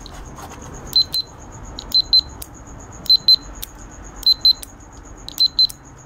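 Buzzer on a salvaged remote-control fan circuit board, used as a continuity tester, giving short high-pitched beeps in quick pairs about once a second.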